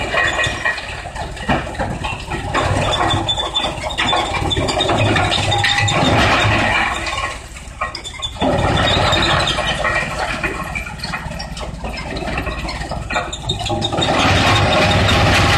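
Industrial wood crusher running, with a steady low hum under a dense clatter and irregular knocks. It dips briefly about halfway through, then picks up again.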